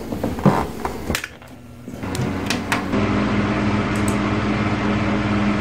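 A few light clicks and knocks, then a steady low machine hum with an even drone that sets in about two seconds in and grows louder about a second later.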